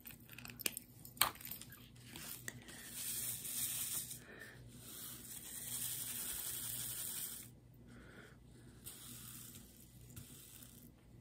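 Clear plastic cover film on a diamond painting canvas rustling and crinkling under a hand, in two longer stretches, with a few light clicks near the start.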